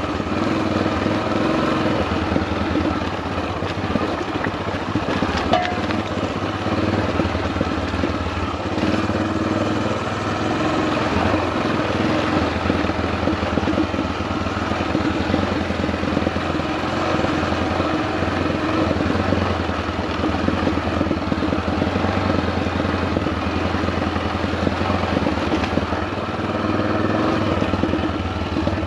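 Single-cylinder dual-sport motorcycle engine running steadily while riding a rough gravel trail.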